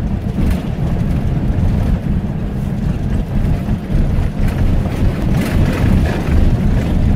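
Safari vehicle driving over rough ground, heard from inside the cabin: a steady low rumble of engine and road noise with a few rattles and knocks.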